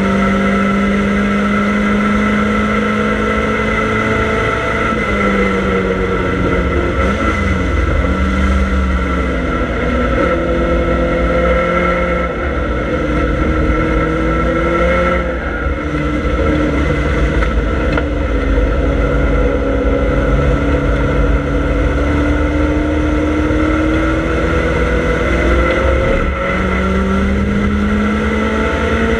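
Triumph Dolomite Sprint's 2.0-litre four-cylinder engine running hard at racing speed, heard from inside the cabin. Its pitch climbs slowly through each gear and is broken by several gear changes, over a steady low road and wind rumble.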